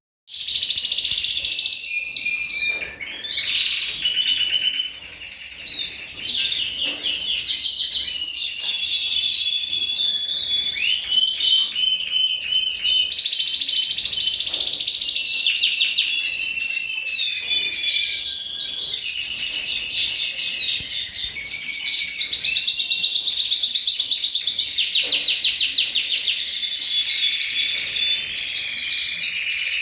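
Small songbird singing a long, unbroken song of rapid trills and warbling phrases, starting abruptly just after the opening.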